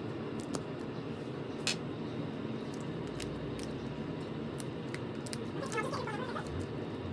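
Scattered light clicks and taps of small hand tools working on a smartphone, over a steady low hum.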